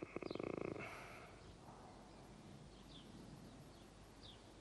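A man's short, low, creaky 'mmm' of hesitation with lips closed in the first second, then faint room hiss with a few brief high chirps spaced a second or more apart.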